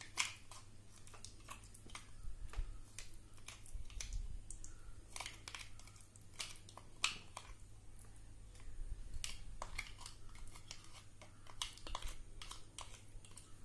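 A spoon scraping thick ground chutney out of a stainless-steel mixer-grinder jar: irregular light scrapes and taps against the metal.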